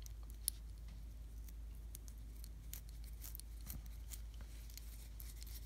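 Faint, scattered light clicks of a small hex driver and screw being worked into an RC helicopter's plastic head arm and head block.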